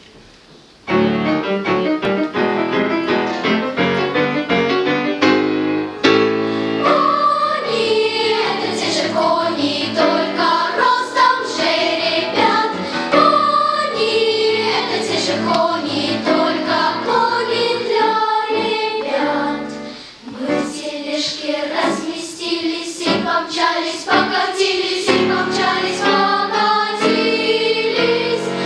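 Children's choir singing a lively song with an instrumental accompaniment. The accompaniment plays quick repeated notes on its own from about a second in, and the voices come in about six seconds in.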